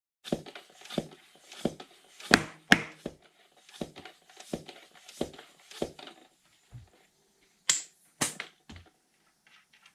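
Tubeless bicycle tire being inflated with rhythmic pumping strokes, about one and a half a second, broken by sharp loud snaps as the tire beads seat on the rim. The pumping stops about six seconds in, and two more sharp snaps follow.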